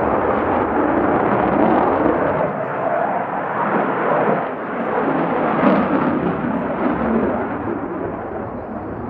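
Loud jet noise from a Belgian Air Force F-16AM's Pratt & Whitney F100 turbofan as the fighter manoeuvres overhead, rising and falling in level as the aircraft turns.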